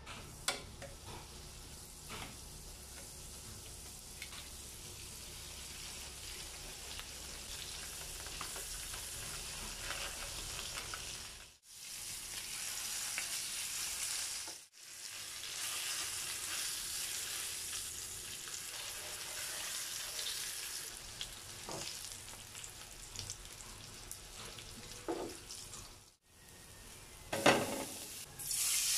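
Butter and salmon fillets sizzling as they fry in a hot pan, with metal tongs scraping and tapping against the pan now and then. The sizzle breaks off abruptly a few times between shots.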